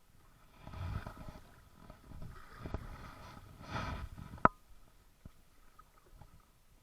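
Kayak paddling: a few swelling splashes of paddle strokes and water against the hull, then one sharp knock, likely the paddle striking the kayak, about four and a half seconds in.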